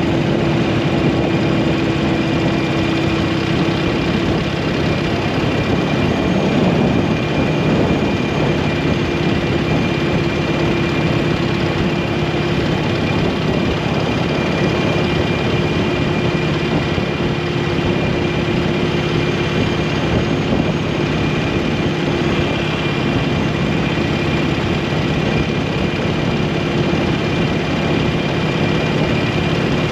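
Motorcycle engine running at a steady cruising speed, its note holding one pitch, under a constant rush of wind and road noise.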